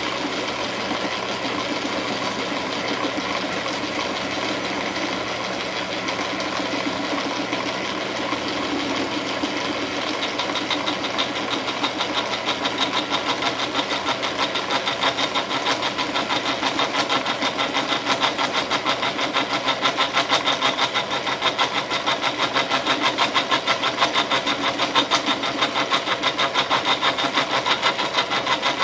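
Milling machine running, its cutter taking a cut into a bar. Partway in the sound turns into a fast, even pulsing that grows louder as the cut deepens, with a thin high whine over it.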